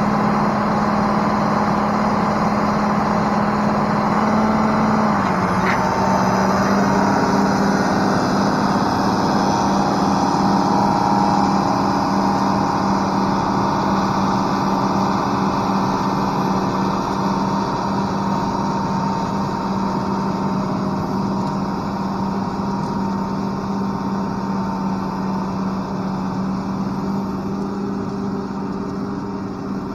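International Harvester 1486 tractor's six-cylinder turbo diesel running steadily under load as it pulls through soft mud. The engine note drops slightly about five seconds in and then holds steady.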